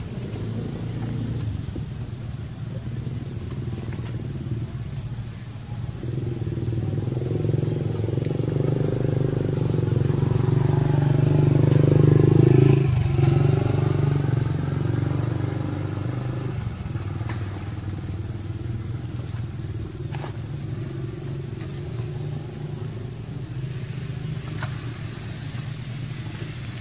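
A motor vehicle's engine running steadily. It grows louder to a peak about halfway through, with a dip in pitch as it passes, then fades back to a steady hum.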